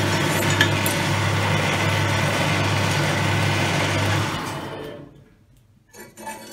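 Jet variable-speed bandsaw running with no load, a steady hum, then switched off and winding down, fading out over about a second around four to five seconds in. Near the end, a few light clinks as the stainless steel knife blank is handled on the metal saw table.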